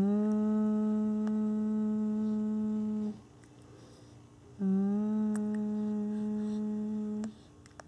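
A baby straining to poop, making two long, steady hums of about three seconds each, the second starting about a second and a half after the first stops.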